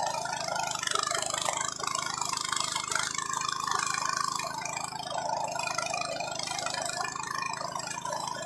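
Walk-behind push mower's 7.5 hp Senci petrol engine running steadily while the mower is pushed through thick dry grass.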